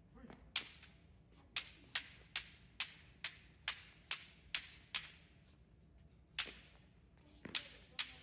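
Bamboo shinai strikes: a child's shinai repeatedly cracking against a shinai held up as a target during basic kendo striking drills. Sharp cracks come about two a second, break off for over a second in the middle, then resume.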